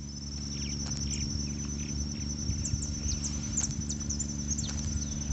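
Riverside ambience: crickets trilling steadily in a high pitch, with scattered short chirps and clicks over a low steady hum and rumble.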